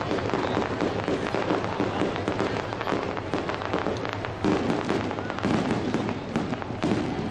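Fireworks going off without a break: many overlapping bangs and crackles, a little louder from about four and a half seconds in.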